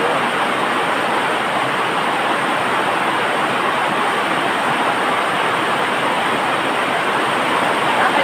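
A steady, loud rushing noise that does not change.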